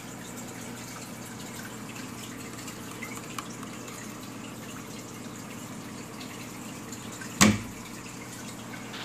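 Aquarium water noise: steady bubbling and trickling from the air-bubble column and filter, over a faint steady hum. A single sharp knock stands out about seven and a half seconds in.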